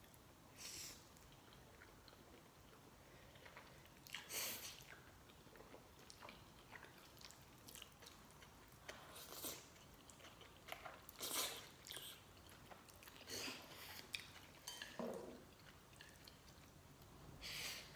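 Eating sounds from spicy black-bean instant noodles: chewing and short noodle slurps, in about eight separate bursts over faint room tone.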